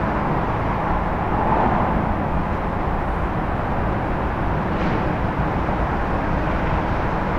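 Steady outdoor background noise: an even low rumble with a fainter hiss above it, with no single distinct sound standing out.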